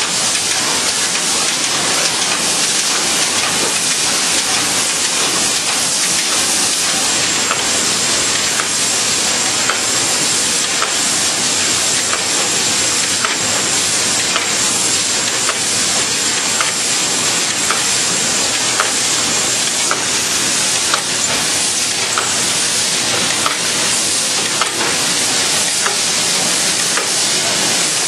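Total-closure shrink-wrapping machine running: a steady, loud rushing hiss with a faint tick about once a second as it cycles. A thin high whine comes in about seven seconds in and stops near twenty seconds.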